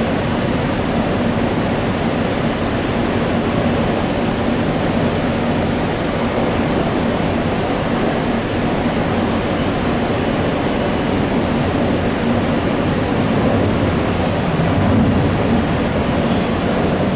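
Jet airliner engines, a loud, steady rush of noise with a faint low hum in it.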